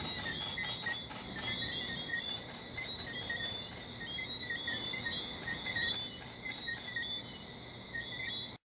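Night chorus of shrill, steady chirping calls from small night creatures, with rapid short chirps over a continuous high trill. It cuts off suddenly near the end.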